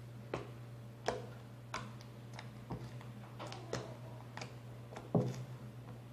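Homemade slime being pressed and folded by hand to make it click: a string of small sharp clicks and pops, roughly one or two a second, the loudest a little after five seconds in. The slime clicks well.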